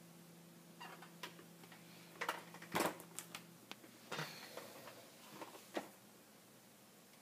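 Irregular clicks and knocks, about a dozen over five seconds, with the loudest knock near the middle, over faint room tone with a low steady hum that stops about halfway through.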